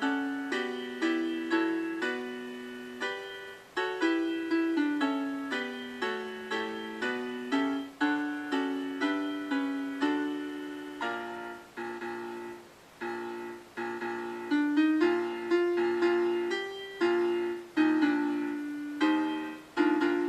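Piano playing a Marian hymn at a slow, even pace: a melody over chords, each note struck and then fading.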